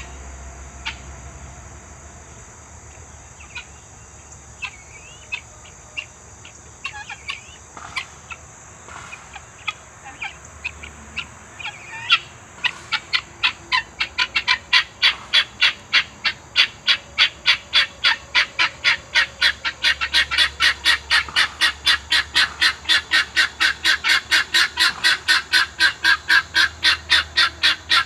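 Farm fowl calling: scattered short calls at first, then from about twelve seconds in a fast, insistent run of sharp repeated calls, about three a second, growing louder.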